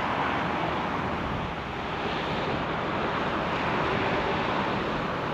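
Steady rushing wind noise on the microphone, with no distinct events.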